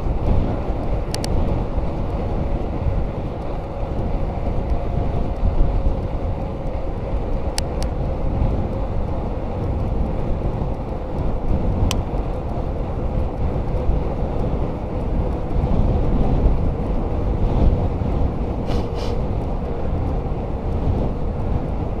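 Wind buffeting the microphone and tyres rolling on asphalt as a 1997 Giant Iguana commuter bike rides along the road. A faint steady hum sinks slowly in pitch as the bike slows, with a few sharp ticks.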